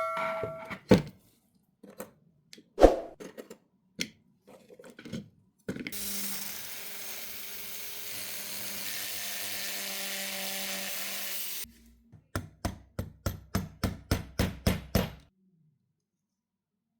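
Workshop work on small metal lighter parts: a few scattered knocks, then a steady machine hiss for about six seconds that cuts off abruptly, then a quick run of about a dozen even scraping or brushing strokes, about four a second.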